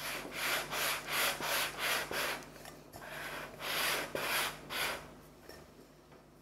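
A metal cake ring twisted back and forth on a stack of matcha crepes on a wooden board, cutting out rounds: a scraping rub in strokes of about three a second, with a short pause about two and a half seconds in, dying away near the end.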